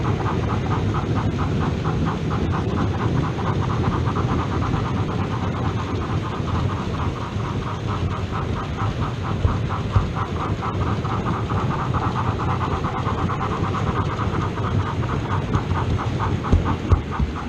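OO gauge model train running on the layout's track, a steady running noise with a fast, even rhythmic pulsing.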